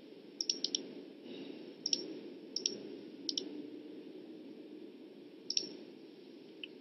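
Computer mouse buttons clicking: a quick run of about four clicks about half a second in, then single and paired clicks every second or so, over a faint steady room hum.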